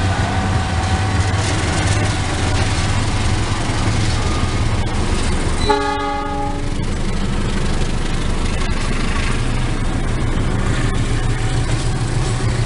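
Diesel locomotive hauling a passenger train past at close range: a steady low engine rumble and the noise of the coaches rolling by. About six seconds in, the horn sounds once for about a second.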